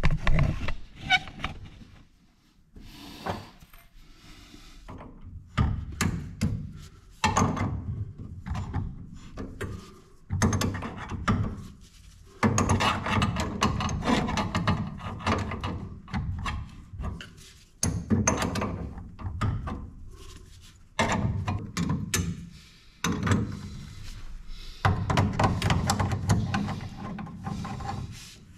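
Pipe grips tightening brass compression nuts on a magnetic heating filter's isolating valves and copper pipework. Irregular clunks, knocks and metal-on-metal rubbing come in bursts a few seconds long, with short pauses between.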